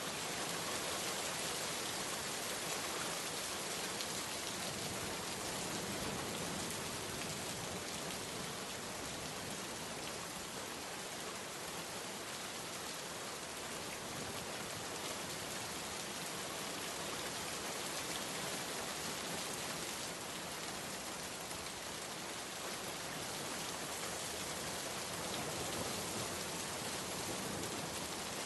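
Steady rain falling on a surface, an even unbroken patter with no let-up.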